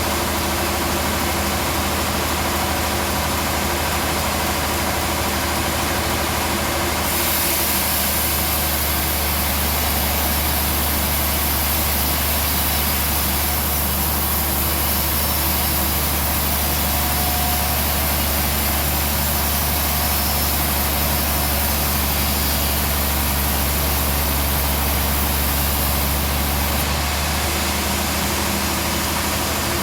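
Band sawmill running with a steady hum while sawing a trembesi log. About seven seconds in, a high hiss and a deeper drone join the hum, and they drop away again near the end.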